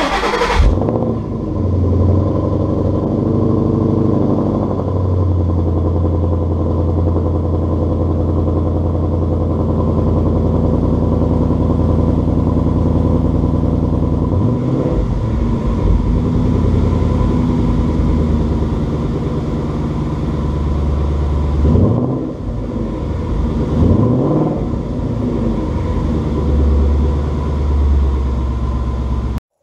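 Exhaust of a 2012 Ford Mustang GT's 5.0 L V8 through new Roush axle-back mufflers and a Ford Performance X-pipe. It comes in with a loud burst, settles into a steady idle, and is revved briefly a few times, once about halfway and twice more later on, before cutting off suddenly near the end.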